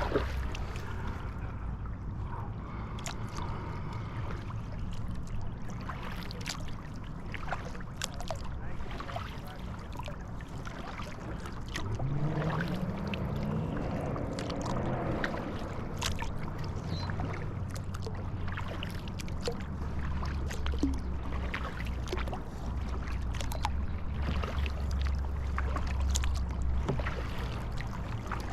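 Kayak paddling on a lake: water splashing and dripping from the paddle, small knocks on the hull and a steady low rumble of water and wind on a GoPro mounted on the boat. About twelve seconds in, a pitched hum rises in pitch and fades over a few seconds.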